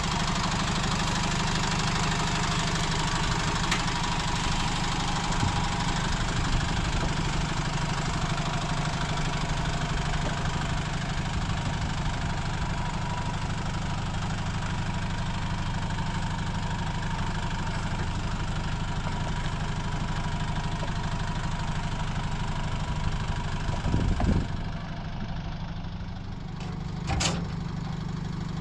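A Foton light truck's engine idling steadily. Near the end there is a low thud, then a short sharp clank at the truck's tailgate.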